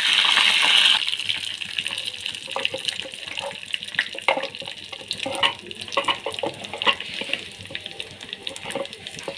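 Curry leaves sizzling and spattering in hot oil with dried red chillies and garlic in a small tempering pan. There is a loud hiss as the leaves hit the oil, which settles after about a second into scattered crackles and pops.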